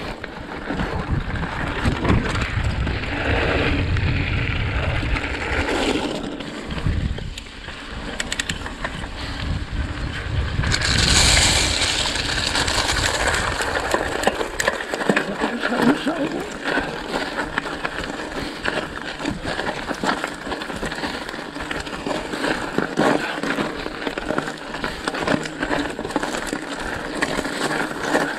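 Mountain bike rolling over loose gravel: tyres crunching and the bike rattling over stones, with wind rumbling on the microphone during the first several seconds and a louder hiss of gravel about eleven seconds in.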